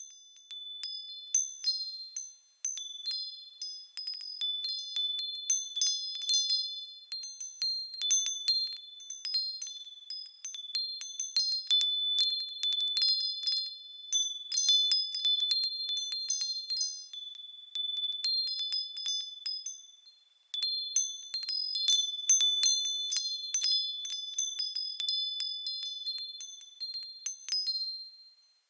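Metal chimes tinkling: many high, bright notes struck in quick, irregular succession over a few ringing tones. The sound fades briefly about twenty seconds in, then picks up again.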